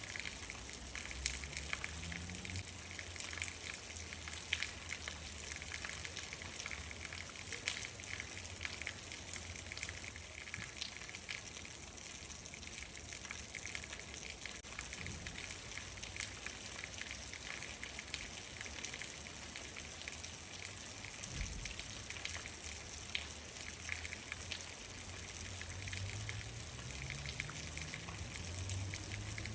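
Steady rain falling, with many individual drops ticking sharply against the even hiss.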